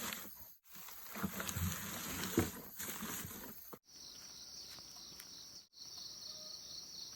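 Steady, high-pitched insect chirring starts about four seconds in, after a few seconds of faint rustling and small knocks. The sound breaks off briefly a few times.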